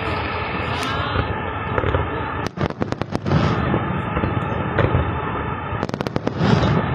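Aerial fireworks going off continuously, a dense mix of booms and crackling. Quick rapid-fire bangs come about two and a half seconds in and again near the end.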